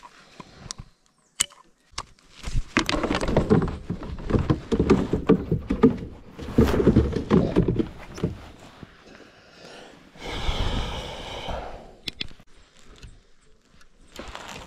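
Rough thumping and rattling on a plastic fishing kayak as a peacock bass is handled and thrashes against the deck. Most of it falls in a loud stretch of a few seconds, with a shorter burst later on.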